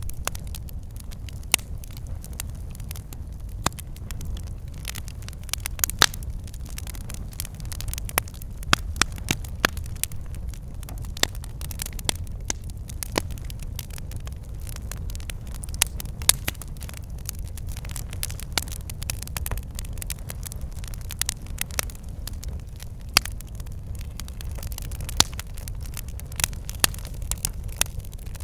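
Campfire crackling: irregular sharp pops and snaps, several a second, over a steady low rumble of the burning fire.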